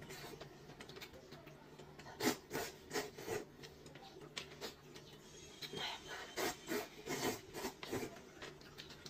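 A woman slurping rice noodles and chewing them, in a run of short slurps that come in two clusters with a lull in the middle.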